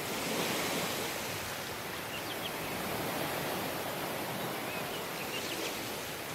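Waves washing onto a tropical beach: a steady surf hiss that swells about half a second in and again around three seconds in. Faint short high chirps come twice, about two and a half seconds in and near the end.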